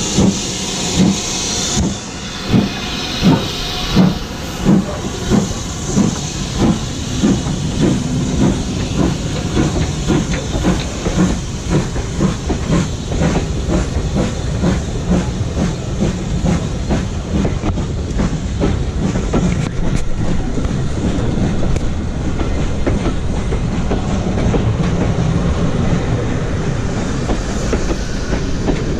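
BR Standard Class 5 4-6-0 steam locomotive 73156 pulling away from a station: its exhaust chuffs come quicker and quicker as it gathers speed, with a steam hiss over the first couple of seconds. Then its passenger coaches roll past close by, wheels clattering over the rail joints.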